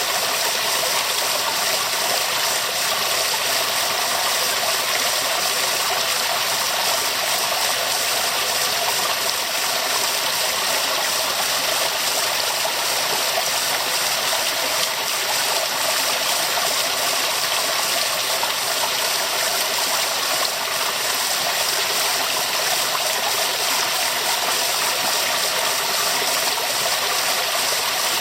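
Waterfall: water pouring and splashing in a steady, even rush with no changes.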